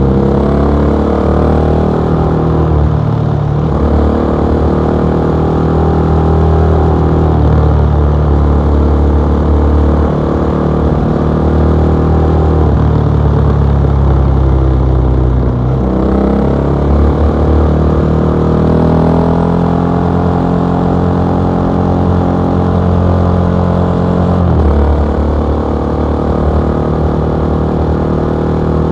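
KTM 660 SMC's single-cylinder engine through an Akrapovic exhaust, under way. Its pitch keeps stepping and shifting as the revs change through gears, falling away about fifteen seconds in and climbing again after.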